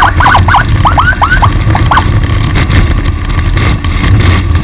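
Steady low rumble of a vehicle on the move, with a quick run of about a dozen short rising chirps in the first two seconds.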